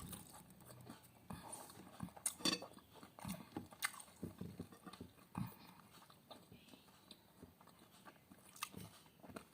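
A person chewing and biting food, with irregular wet mouth noises and a few sharper clicks, the loudest about two and a half and four seconds in.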